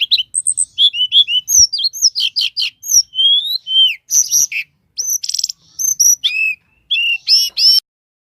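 A songbird singing a fast, varied song of high whistled notes that slide up and down, mixed with short buzzy trills. The song stops abruptly near the end.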